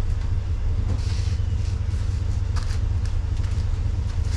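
A pickup truck's engine idling close by, a steady low rumble, with a few faint knocks and scrapes as a canoe is handled.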